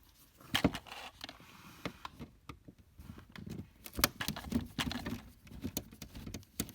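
Phillips screwdriver backing out the screws of a plastic under-dash trim cover: irregular small clicks, scrapes and rattles of the screws, driver tip and plastic panel.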